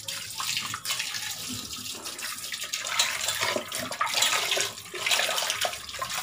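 Tap water pouring into a stainless steel vessel while cut fish pieces are rinsed and turned over by hand, with irregular splashing and sloshing.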